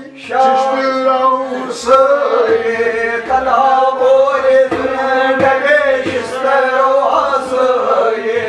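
Men singing a devotional chant together over a steady held drone, with the low beats of a hand drum.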